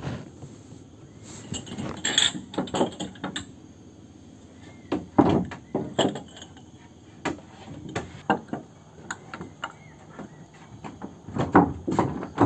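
Irregular knocks and clatter, some in quick clusters.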